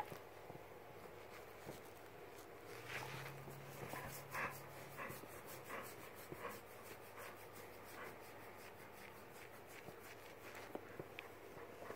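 A dog huffing and panting in short breaths, about two a second, while being scratched on the chest.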